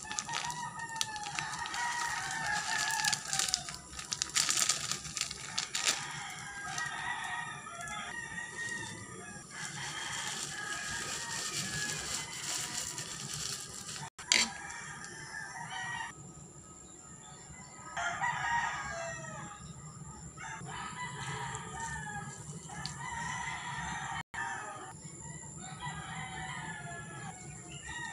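Chickens clucking and a rooster crowing, in repeated calls with quieter gaps between spells.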